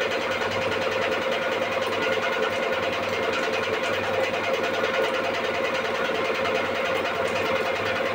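A machine running steadily with a constant hum that does not change.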